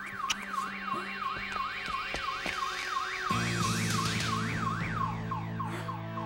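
An emergency vehicle siren in a fast yelp, its pitch sweeping up and down about three times a second, over background music. A low bass comes into the music about halfway through, and near the end the sweeps fade.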